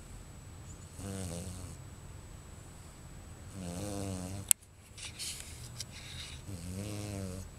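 Bichon Frise snoring in her sleep: three snores, each under a second long, about three seconds apart. A sharp click about halfway through is the loudest sound.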